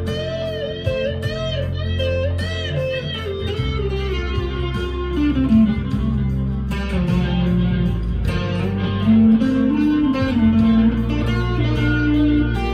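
Harley Benton SC Custom II electric guitar played through an amp's crunchy, lightly overdriven channel: a single-note lead line, with wide vibrato on held notes over the first few seconds, then a run stepping downward, and more bent notes later on.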